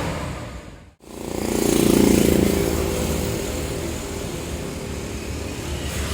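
Tour bus engine passing close by, swelling to its loudest about two seconds in and then running steadily, with no horn sounded. The sound cuts out briefly near one second.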